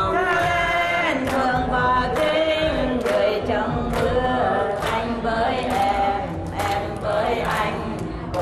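A woman singing a song into a handheld microphone, holding long melodic notes, with a regular sharp beat underneath.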